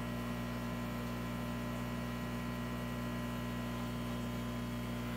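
Steady electrical hum with a faint hiss from a running saltwater aquarium's pumps and equipment, level and unchanging throughout.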